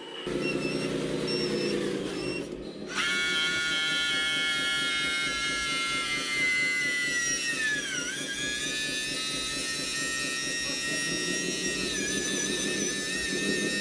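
Hydraulic pump of a scale RC dump truck whining steadily as the tipper bed rises, its pitch dipping briefly about eight seconds in and wavering again near the end. A low, fast pulsing runs underneath from the start.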